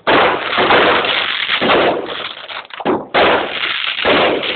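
Aerial fireworks bursting overhead in a rapid string of loud bangs, about five in four and a half seconds, with noise hanging on between them.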